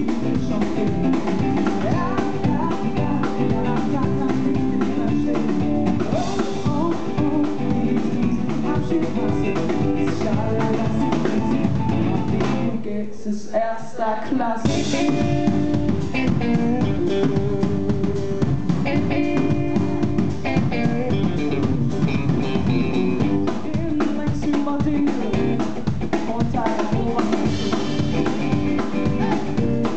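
Live pop-rock band playing: drum kit, acoustic and electric guitars and keyboard. The band drops out briefly about 13 seconds in, then comes back in.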